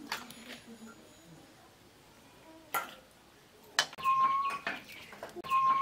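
Steel ladle knocking and scraping against a steel kadai and bowl as egg curry is served. There is a single sharp clink about 3 s in, then from about 4 s in several knocks with a ringing metal tone.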